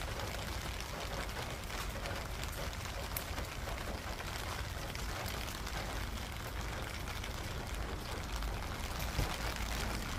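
Steady rain falling on a rooftop garden's plants and pots, individual drops ticking among the even hiss, with a steady low rumble underneath.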